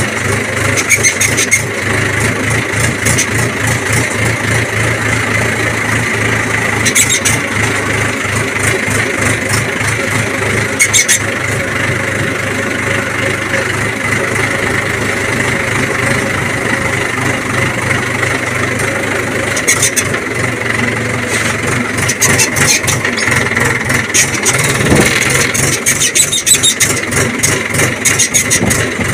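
Red farm tractor's diesel engine running steadily with an even low chugging as it drives over a rough dirt track, with short bursts of clatter now and then.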